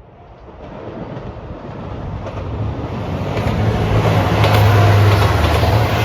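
A JR Shikoku 2700 series diesel train approaching, its sound building steadily over about four seconds to a loud, steady low engine drone with rolling wheel noise on top.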